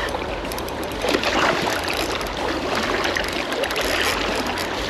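River water rushing and splashing, with irregular small splashes over a steady wash.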